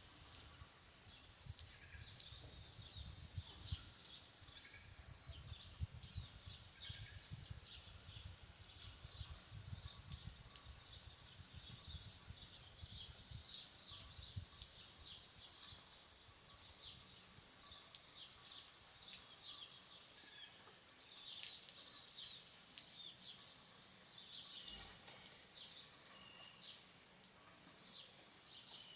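Faint rural ambience of small birds chirping and calling, many short high chirps overlapping throughout. A low rumble sits under them and fades out about halfway.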